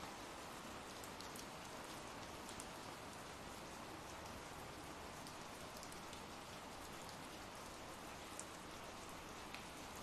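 Steady rain sound effect, faint and even, with a few light drop ticks.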